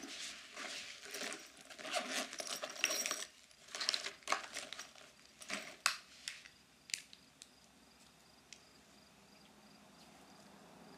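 Small objects being handled and rummaged through: rustling and light knocks, then a few sharp clicks as a makeup compact and lipstick are taken out and opened. The sounds fade out about two thirds of the way through.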